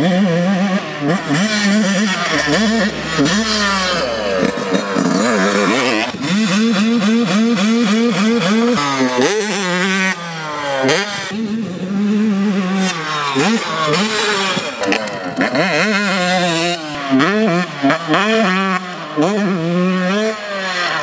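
Yamaha YZ125 two-stroke dirt bike with a Pro Circuit exhaust, revving hard on a supercross track. The pitch climbs and drops again and again as the throttle is opened and chopped through the jumps.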